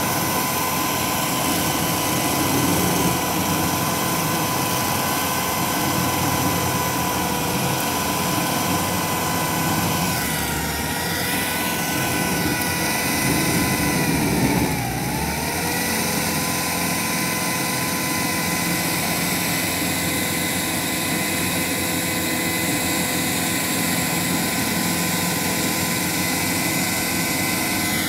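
Tracked stump grinder running hard, its engine and spinning cutter wheel giving a steady whine over a grinding rumble. About 13 seconds in the rumble grows and the whine's pitch sags briefly as the wheel bites into the wood under load, then comes back up.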